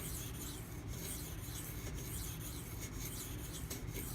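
Steel knife edge scraping on a 1000-grit silicon carbide sharpening stone in repeated back-and-forth strokes.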